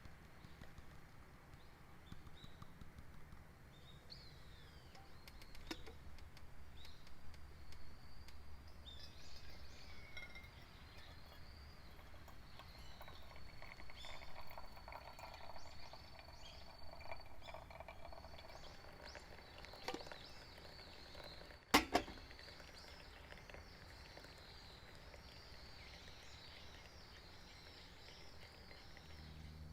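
Small birds chirping over a low, steady outdoor hum, with a few light clinks and one sharp click about two-thirds of the way through.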